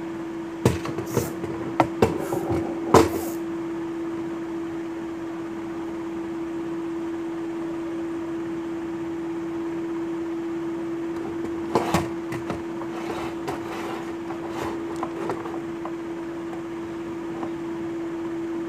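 A steady, even hum with a single pitch, under two clusters of sharp clicks and knocks from handling the plastic ring-light stand and its remote, the first in the opening three seconds, the second about two-thirds of the way through.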